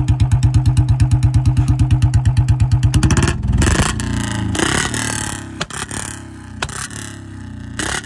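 Royal Enfield Bullet's single-cylinder engine idling with an even thump, about ten beats a second. About three seconds in the throttle is blipped: the engine revs up, then falls back rough and uneven, with sharp pops from the exhaust. The owner says the engine still misfires even after refuelling.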